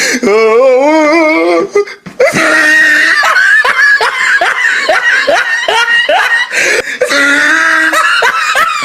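A person laughing loudly and heartily: a wavering drawn-out laugh, then a long run of quick, evenly spaced ha-ha bursts, and a held laughing cry near the end.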